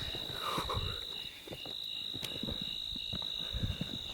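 Night insects, crickets, trilling in a steady high-pitched chorus, with scattered soft knocks and rustles close by.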